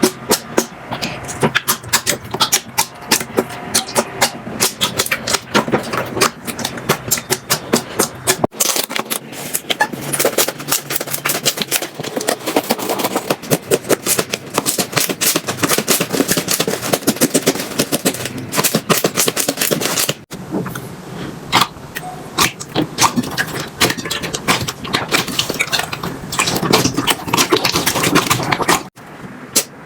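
Slime being squeezed, pressed and poked by hand, making dense, rapid clicking and popping crackles. The texture changes abruptly about 8 and 20 seconds in as one slime gives way to another.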